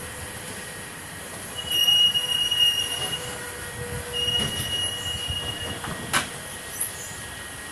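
Passenger train's wheels squealing against the rails in two long, steady, high-pitched squeals of about a second and a half each, over the train's steady running noise. A sharp knock comes near the end.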